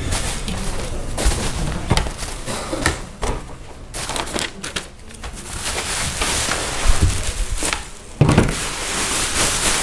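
Packing materials handled on a table: plastic bubble wrap and paper rustling and crackling as a large sheet of bubble wrap is lifted and shaken out, with scattered sharp clicks and a heavier knock about eight seconds in.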